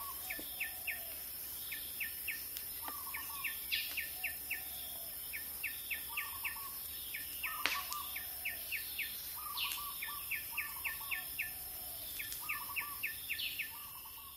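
Forest birds calling: a quick series of four to six high chirps repeated about once a second, with lower warbled notes in between, over a steady high hiss. The sound fades out at the end.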